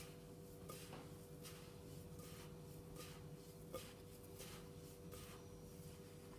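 Faint, soft rustling strokes of gloved hands rubbing a dry flour-and-almond mixture in a glass bowl, over a low steady hum.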